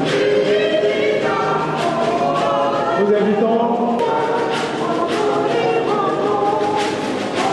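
A choir of many voices singing a hymn together in held notes that shift pitch every second or so.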